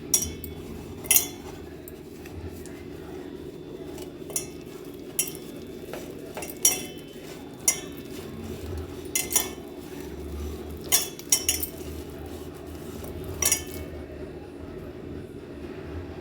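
Vanjaram fish pieces being mixed by hand in a vessel with spice masala and egg, giving scattered clinks and knocks against the vessel, about ten in all, over a steady low hum.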